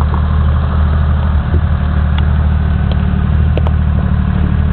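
M561 Gama Goat's Detroit Diesel 3-53 two-stroke three-cylinder engine running steadily at low revs as the vehicle crawls over rough ground, with a few light clicks.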